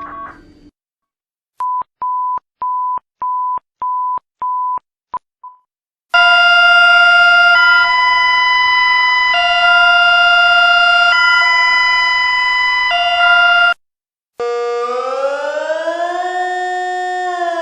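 A run of electronic emergency alert tones. First about seven short, evenly spaced beeps at one pitch. Then a loud chord switching back and forth between two pitches every second and a half or so for about seven seconds, and after a short gap a siren-like tone that rises, holds and starts to fall near the end.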